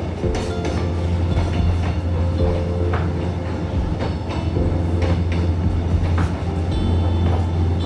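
Kuranda Scenic Railway train running on the track: a steady low rumble with irregular clicks and clacks of the wheels over the rails, and faint high squeals now and then.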